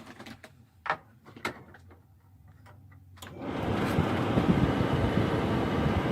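A few clicks, then about three seconds in a propane forced-air furnace's blower starts up and runs with a steady rushing of air.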